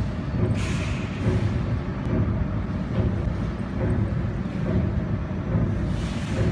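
Four-axis laser welding machine and its water chiller running while welding motor stator components: a steady low machine hum that pulses regularly, about every 0.7 s, with a brief hiss about half a second in.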